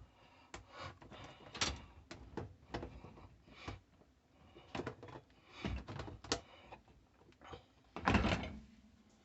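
Plastic clicks and knocks from handling a Whirlpool dishwasher's filter parts and fitting them back into the tub, with a louder thunk about eight seconds in.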